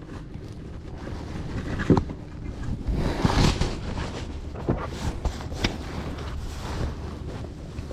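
Wind buffeting the microphone, with a few sharp knocks and a louder rustling, splashy burst about three seconds in.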